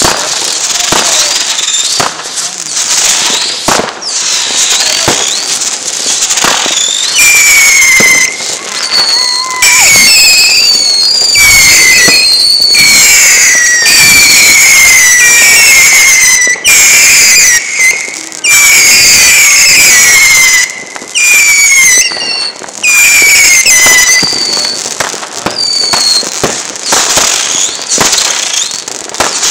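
A fireworks display going off in dense, rapid bangs and crackles. Through the middle, a run of whistling effects is heard, each whistle falling in pitch, about one a second.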